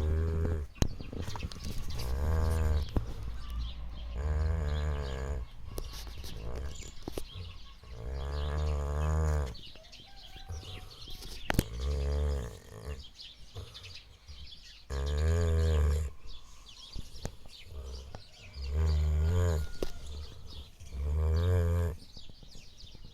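Saint Bernard dog snoring: about eight low, rumbling snores, each around a second long, coming unevenly every two to four seconds.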